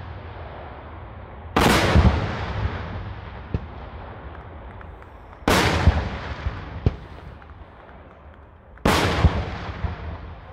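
Daytime fireworks: three heavy aerial shell bursts a few seconds apart, each a sudden loud boom that rolls away in echoes over two to three seconds. A few smaller sharp cracks come between them.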